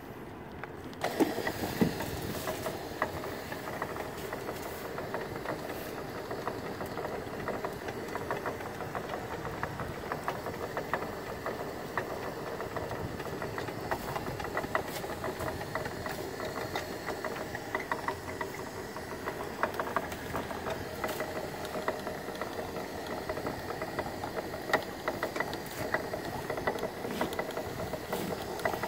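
Homemade crab pot puller running, its motor-driven sheave hauling rope up over a guide roller with a steady hum and frequent small clicks and rattles. It starts up about a second in.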